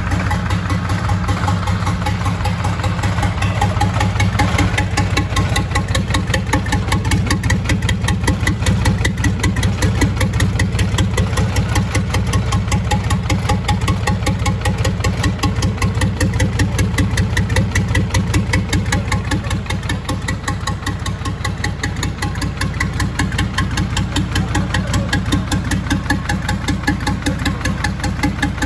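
Freshly rebuilt MAN D0826 inline-six diesel engine idling steadily on its second start, with a rapid, even firing beat.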